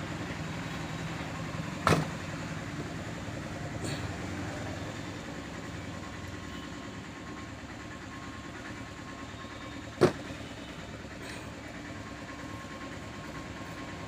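Steady low engine-like rumble in the background, with two sharp knocks, one about two seconds in and one about ten seconds in.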